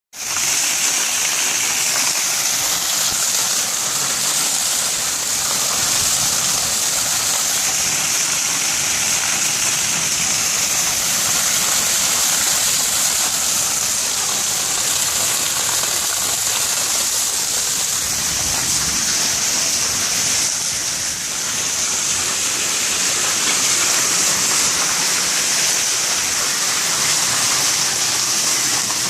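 Very heavy monsoon rain pouring down in a steady hiss, with water gushing and running off.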